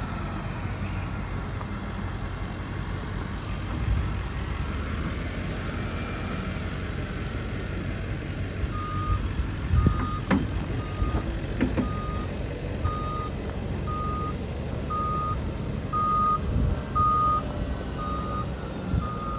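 Wheel loader's diesel engine running as it digs into a mulch pile, with a few sharp knocks around ten to twelve seconds in. From about nine seconds in its reversing alarm beeps steadily, about once a second, as it backs up.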